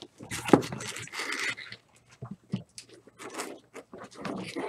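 Cardboard shipping case of card boxes being handled: a sharp thump about half a second in as the case is set down, then cardboard scraping and rustling as the outer carton is slid up off the stacked boxes, with scattered small knocks.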